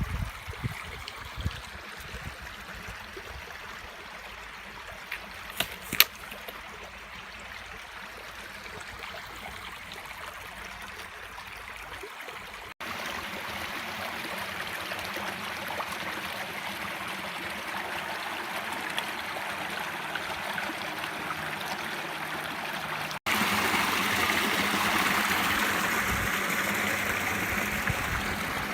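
A stream flowing steadily, heard in three stretches that each begin abruptly and are louder than the one before. There is a single sharp click about six seconds in.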